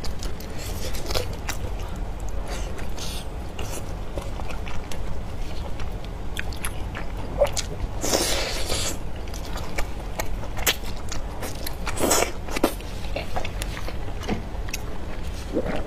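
Close-miked eating sounds: biting and chewing soft, saucy braised lamb intestine, with many small wet mouth clicks and smacks. A louder, longer wet noise comes about eight seconds in, and a shorter one near twelve seconds.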